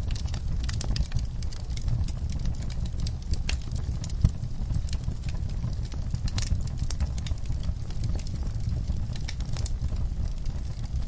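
Wood fire in an outdoor fireplace crackling, with scattered irregular snaps and pops over a steady low rumble; one snap about four seconds in is louder than the rest.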